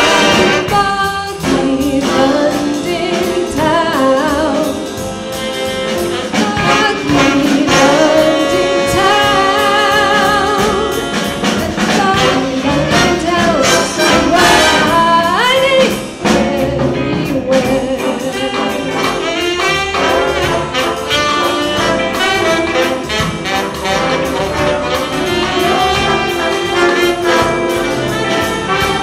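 A jazz big band, with brass and saxophones, playing live behind a woman singing.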